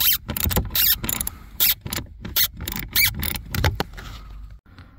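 Small hand ratchet with a Torx T20 bit clicking as it is swung back and forth to back out a blower motor mounting screw, with irregular clicks and knocks that stop about four seconds in.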